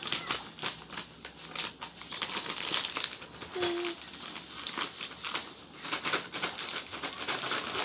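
A plastic snack bag crinkling and rustling irregularly as it is handled. There is a brief hum about halfway through.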